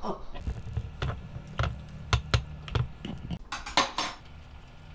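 Dishes and utensils clinking and knocking, a handful of sharp clinks over a low rumble, stopping about four seconds in.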